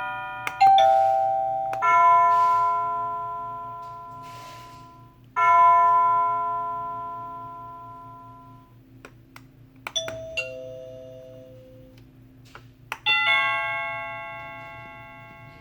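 SadoTech Model C wireless doorbell receiver playing its chime ringtone as transmitter buttons are pressed, which shows the buttons are paired. Several bell-like chime strikes, each ringing out and slowly fading, with a lower two-note chime about ten seconds in; short clicks come before some strikes, over a steady low hum.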